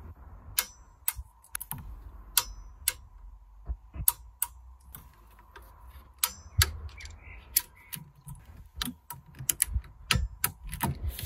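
Ratchet wrench clicking as exhaust fasteners at the turbo are turned, in sharp single clicks at uneven intervals, at times about two a second, with short pauses between strokes.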